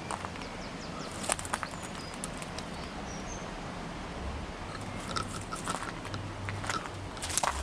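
Footsteps crackling through dry twigs and undergrowth, in scattered clusters, over a steady outdoor background with a few faint bird chirps.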